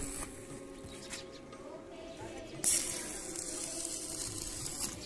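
Electric arc welding on a steel pole: the arc hisses and crackles, briefly at first, then in a louder stretch that starts abruptly a little past halfway and stops just before the end.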